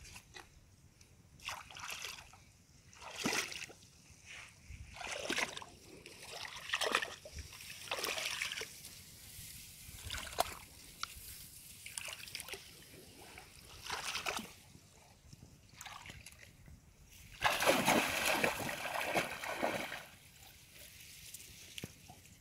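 Shallow muddy water splashing and sloshing as someone wades through a flooded rice paddy and works a bamboo fish trap: separate splashes every second or two, then a longer, louder stretch of splashing about three quarters of the way through.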